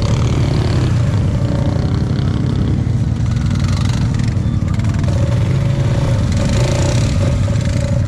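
Can-Am ATV engine running steadily, a low rumble with no change in pace.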